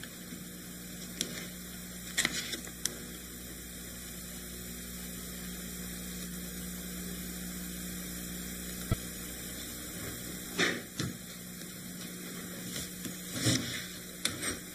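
Steady low electrical hum that drops away about ten seconds in, with a few scattered soft knocks and clicks.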